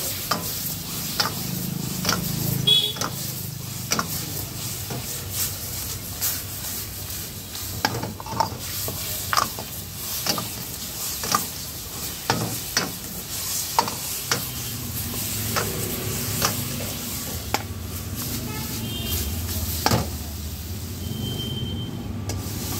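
Metal ladle scraping and knocking against a wok, about once a second, as veg manchurian is stir-fried in its sauce, with sizzling underneath.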